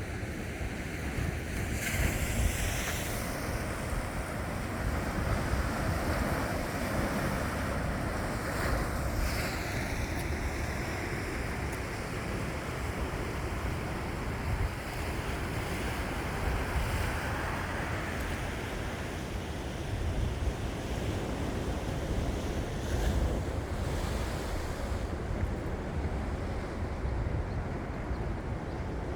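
Sea waves washing on the shore in a steady surge, with wind buffeting the microphone as a low rumble.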